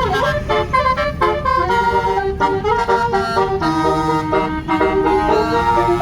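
Indonesian tour bus 'telolet' multi-tone musical horn playing a tune of changing notes, some short and some held, over a low rumble.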